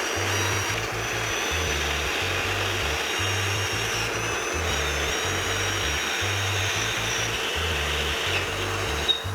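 Background music with a steady bass line, over a power tool running continuously with a high whine, cutting off at the end.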